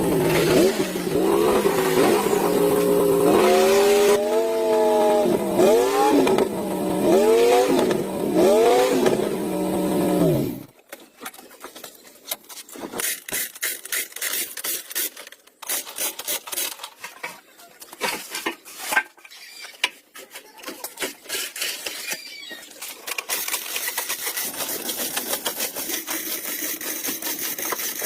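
Old jeep's engine running and being revved, its pitch rising and falling several times, then cutting off suddenly about ten seconds in. Scattered clicks and scrapes of tools on metal follow, and a steady hiss comes in near the end.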